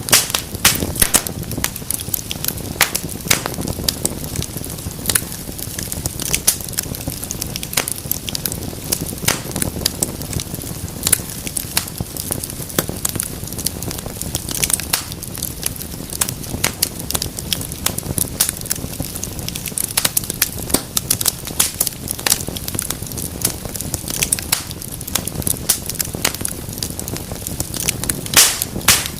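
Wood fire burning in a fireplace: steady low rush of flames with frequent sharp pops and crackles of burning wood.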